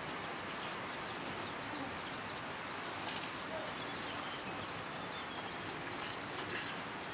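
Small birds chirping in the background over a steady outdoor hiss, with a few soft clicks about three and six seconds in.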